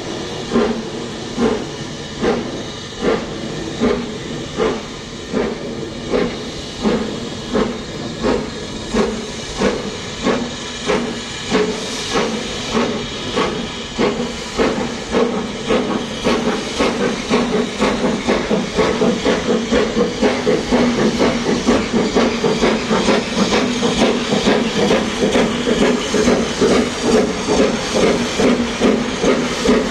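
BR Standard Class 4MT 4-6-0 steam locomotive no. 75078 pulling a train of coaches, its two-cylinder exhaust beats quickening steadily from about one and a half to about three a second, over a constant hiss of steam.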